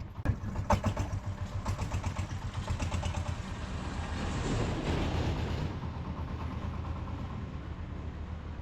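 Diesel motor tricycle's engine running with a fast, even chugging, as the tricycle sets off; it grows louder about four to five seconds in, then eases back.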